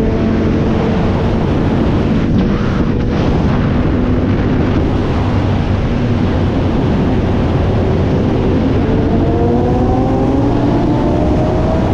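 Sport motorcycle engine running at highway speed under heavy wind rush. Its pitch holds fairly steady, then rises over the last few seconds as the bike accelerates.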